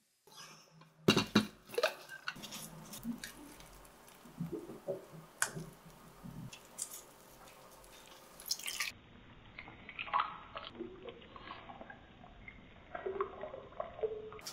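A wooden spoon stirs and presses a blended seasoning puree through a stainless steel mesh strainer sitting in a metal bowl. There are wet squishing and scraping sounds, several sharp knocks of spoon on metal, and liquid dripping and running into the bowl.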